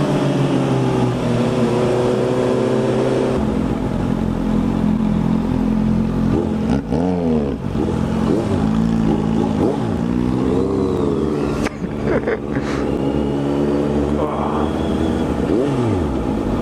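Honda CB650F inline-four motorcycle engine running on the move, its revs rising and falling repeatedly with the throttle and gear changes. A few sharp knocks come about twelve seconds in.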